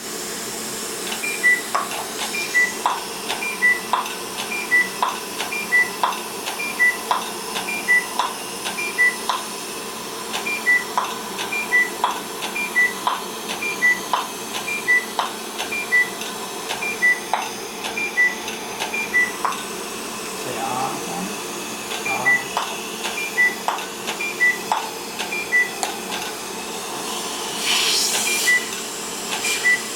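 Fotona Lightwalker Er:YAG dental laser firing in a steady run of pulses: short beeps at two alternating pitches, about three every two seconds, with a sharp snap about once a second over a steady hum. The beeps pause briefly past the middle, and there is a burst of hiss near the end.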